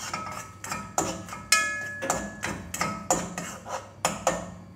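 A spoon knocking and scraping against a cooking pot while stirring, about two knocks a second, several of them ringing briefly.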